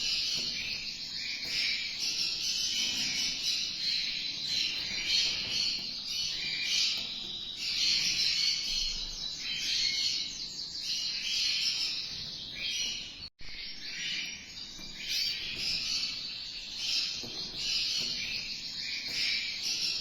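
A dense, continuous chorus of high chirps and trills from small animals, with a brief dropout about thirteen seconds in.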